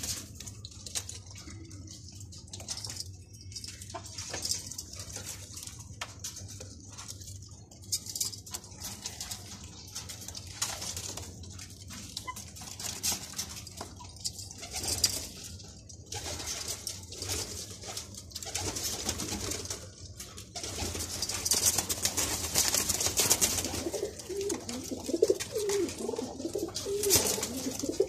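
Domestic high-flyer pigeons cooing in their loft, the cooing growing louder and more constant over the last few seconds, over a light scratchy rustling.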